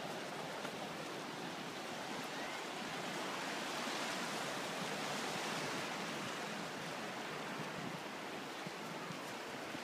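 Sea surf washing steadily against a rock shoreline, a constant rushing that swells a little in the middle.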